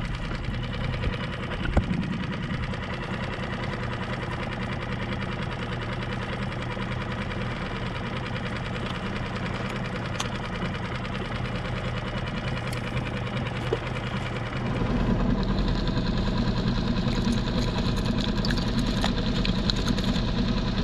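Small outboard motor on a micro skiff running steadily at low speed, a continuous mechanical chug. About two-thirds of the way through it gets louder and heavier.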